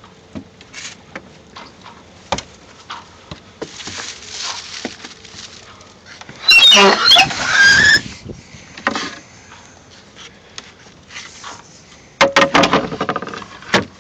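Knocks and taps on a sailboat's companionway hatch and steps, with two loud squeaking scrapes, one about halfway through and one near the end.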